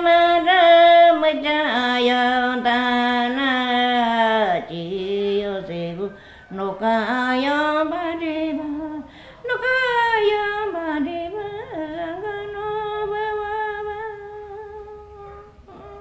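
A woman singing alone without accompaniment, in the voice of a Shipibo-Konibo healer: a melody that slides downward with wavering notes, breaks off briefly twice, then settles on a long held note that fades near the end.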